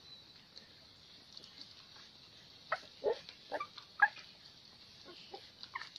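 Young puppies squeaking and whimpering as they nurse, a few short, high squeaks about halfway through.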